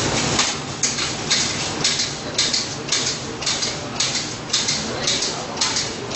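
Automatic fried-rice machine's wok tumbling rice over the gas flame: a rhythmic metallic scrape and sizzle about twice a second, over a steady hiss.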